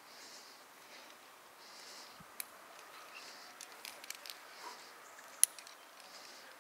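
Faint, rhythmic breathing of a rock climber straining on the wall, a breath about every second and a half, with scattered sharp clicks, the loudest about five and a half seconds in.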